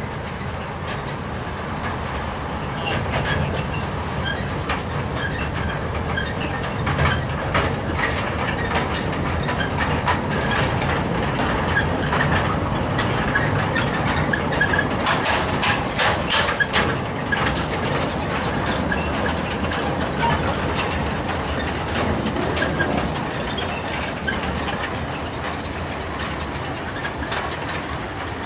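Narrow-gauge slate wagons rolling slowly past with a steady clatter and clicks over the rail joints. The small 0-4-0 saddle-tank steam locomotive No. 4 Palmerston follows them, hissing steam.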